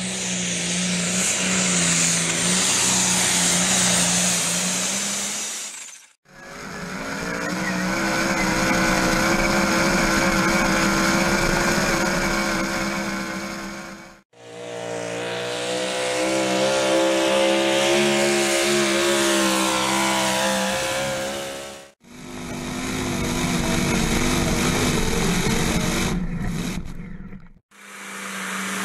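Engines of competition pulling tractors and a modified four-wheel-drive pulling truck running hard under load. The sound comes as a string of separate clips, each fading in and out roughly every six to eight seconds. In one clip the engine pitch climbs, then eases back.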